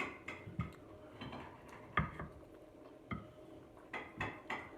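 Utensils clicking and tapping against dishes and food containers during a meal: about ten short, irregular clicks, the loudest about two seconds in.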